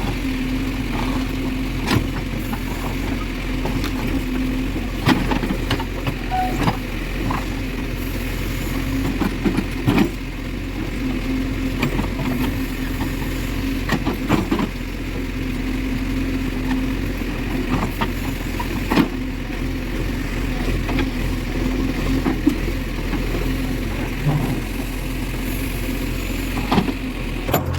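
JCB 3DX backhoe loader's diesel engine running steadily while the machine works, with sharp knocks every few seconds.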